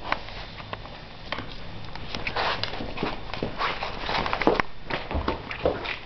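An Old English Sheepdog puppy moving about: irregular clicks and scuffs of paws and claws on the floor, with a couple of short rustling bursts.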